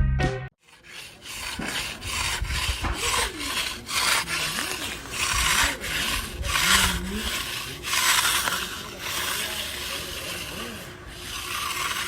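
A run of uneven scraping strokes, roughly one or two a second, starting about half a second in.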